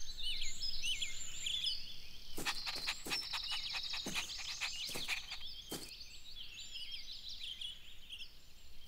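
Birds chirping and twittering in a garden ambience, with a run of short sharp ticks and taps from about two and a half to six seconds in.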